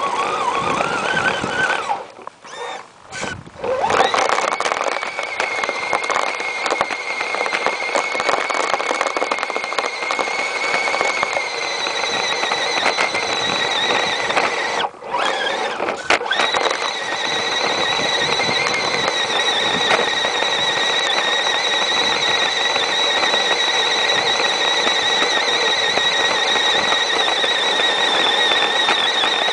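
Electric motor and drivetrain whine of an Axial AX10 radio-controlled truck, heard close up from a camera mounted on the truck as it pushes snow with a plow blade. The high whine rises in pitch over the first second or so, cuts out briefly a few seconds in and twice near the middle, then holds steady.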